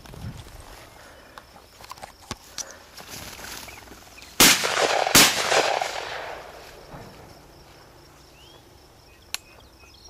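Two shotgun shots fired at a flushed quail, less than a second apart, each followed by an echo dying away over about two seconds.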